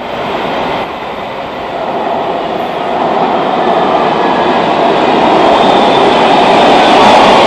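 Los Angeles Metro Red Line subway train approaching through the tunnel into the station, its rumble and wheel noise growing steadily louder, with a steady tone coming in near the end.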